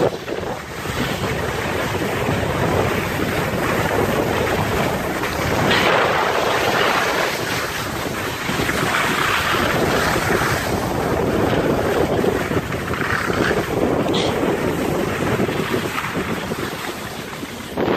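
Wind rushing over the microphone of a handheld camera carried by a skier moving downhill, mixed with the hiss of skis sliding over soft, slushy snow. The rush swells and eases as speed changes.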